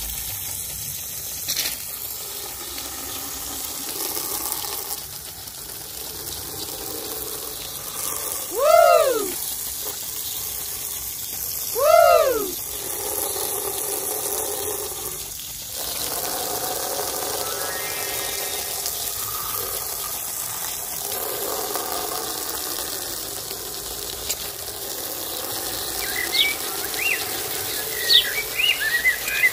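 A jet of water spraying onto toy cars, a steady hiss. Two short swooping tones, each rising then falling in pitch, sound about three seconds apart, and birds chirp near the end.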